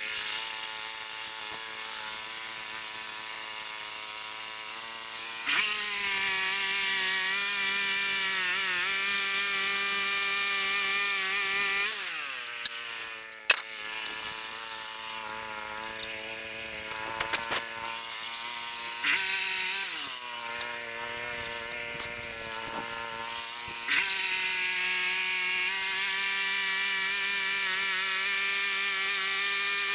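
Frontier OS27 band sawmill running, its engine steady while the blade saws through a cherry log. The engine pitch steps up a few seconds in, sags and recovers around the middle with a couple of sharp clicks, and steps up again later.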